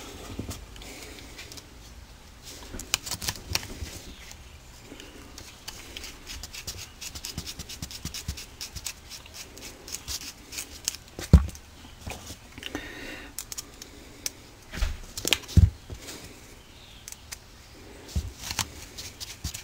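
A hex driver clicking and scraping as it turns the screws that hold the end plate onto a Tekin Pro 4 brushless RC motor. There are runs of small clicks, with a few sharper knocks now and then.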